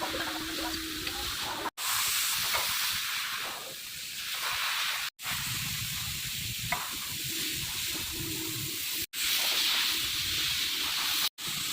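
Steady hissing noise with a low rumble beneath it, cut off abruptly for a split second four times.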